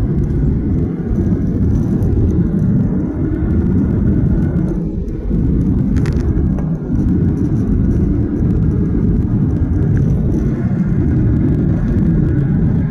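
Steady low rumble of engine and airflow noise inside the cabin of a Boeing 737-800 airliner in flight, with a faint click about halfway through.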